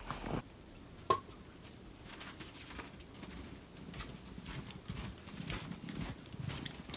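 Boots crunching through snow in steady footsteps, faint at first and growing louder as the walker comes closer. A single sharp click sounds about a second in.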